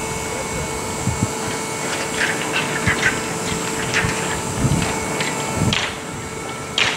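Indoor climbing-hall background: a steady mechanical hum, with scattered short knocks and rustles and a brief hiss near the end.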